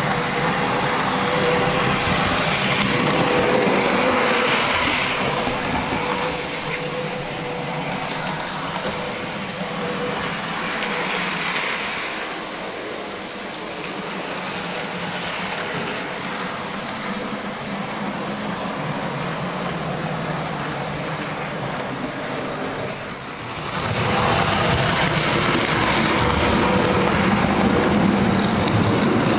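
OO gauge model locomotive running on the layout: the small electric motor's steady whine over the rattle of its wheels on the track, rising and falling in loudness, with an abrupt change in the sound near the end.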